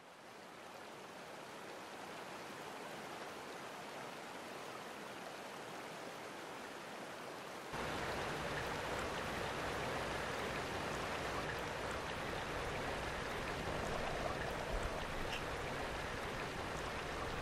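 Flowing stream water: a steady rush that fades in. About eight seconds in it cuts suddenly to a louder, fuller rush.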